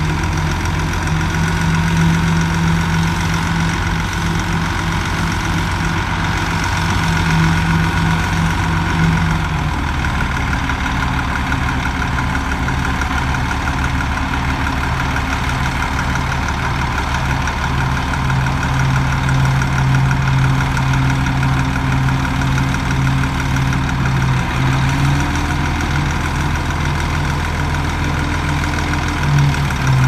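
Heavy diesel engine of construction machinery running steadily. Its note drops about a third of the way in and rises a little near the end.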